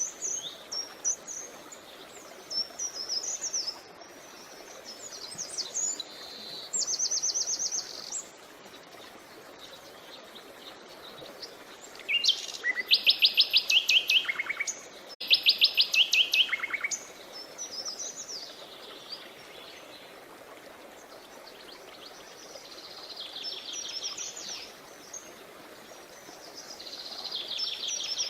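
Songbirds chirping and singing in short phrases, with fast runs of repeated high notes. The loudest trills come about halfway through. A faint steady background noise runs underneath.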